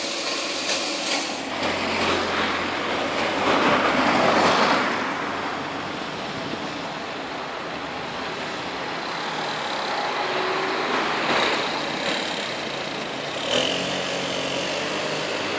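City street traffic: a steady wash of road noise with vehicles passing, the loudest swelling up about two to five seconds in and another around eleven seconds.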